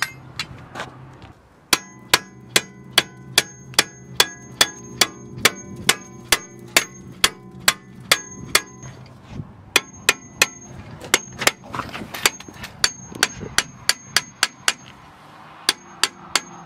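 Hammer blows on a rusted BMW rear brake disc, about three a second, each leaving the disc ringing with a metallic tone. The blows stop for a moment about halfway through, start again, and end with a few quick ones. The disc is rusted fast to its hub and the blows are knocking the rust loose.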